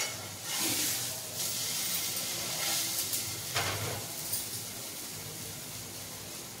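A batter-dipped bread slice sizzling as it shallow-fries in oil in a nonstick frying pan, louder for the first few seconds and then settling. There is a brief knock at the start and another about three and a half seconds in.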